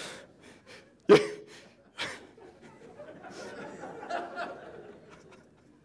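Audience laughing and chuckling, with a sudden loud burst about a second in and a smaller one about a second later.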